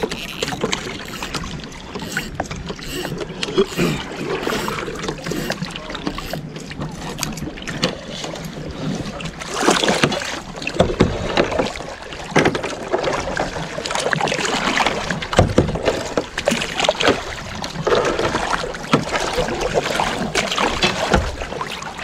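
Kayak paddling: the blades of a double-bladed paddle dip and splash into the water stroke after stroke, over a constant wash of moving water.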